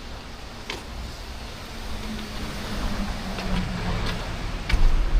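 Road traffic: a motor vehicle passes with a low engine hum over a steady rumble, loudest near the end. A few sharp clicks sound along the way.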